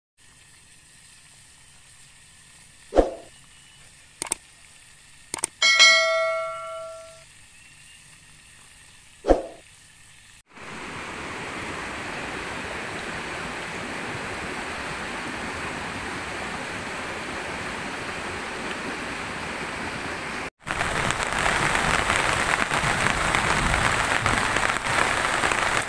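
A few sharp hits and one ringing, bell-like ding over a faint hiss. Then steady heavy rain starts about ten seconds in and comes back louder after a sudden cut about twenty seconds in.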